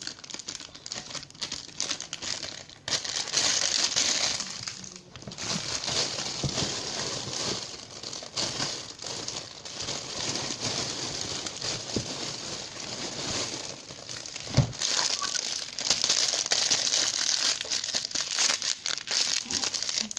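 Plastic packaging crinkling and rustling continuously as a toy is handled and pushed back into it, with many small crackles and a few short pauses.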